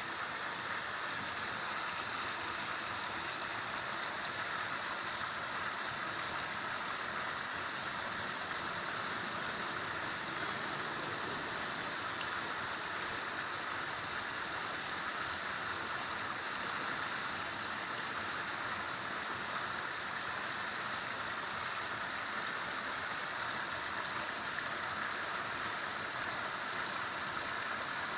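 Fast-flowing canal water rushing steadily, an even hiss with no breaks.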